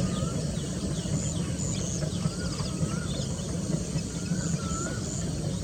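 Birds calling: repeated short wavy whistled notes and scattered high chirps, over a steady low rumble.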